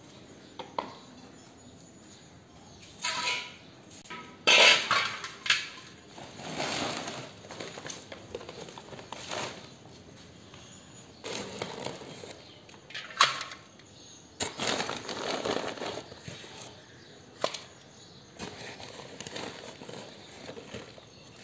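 Trowel and hands scraping and knocking in a dented metal mixing pan, in a string of separate short scrapes and clacks, the loudest about five seconds in.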